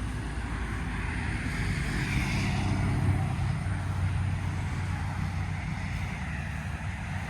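Low rumble of a motor vehicle engine running, growing louder for a couple of seconds around the middle, over a steady hiss.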